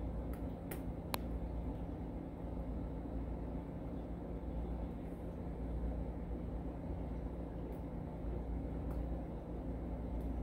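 A few small, sharp metal clicks, three close together about a second in and some fainter ones later, as the parts of a disassembled Evva 3KS lock cylinder are handled, over a steady low room hum.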